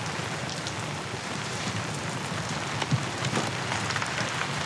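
Steady rain pouring down, an even hiss, with a couple of short knocks about three seconds in.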